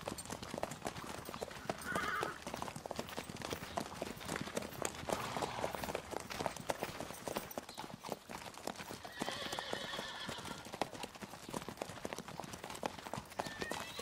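Hooves of a herd of Lipizzaner mares and foals walking on a gravel path: a dense, irregular clatter of many hoofbeats. A horse whinnies briefly about two seconds in, and again, longer, about nine seconds in.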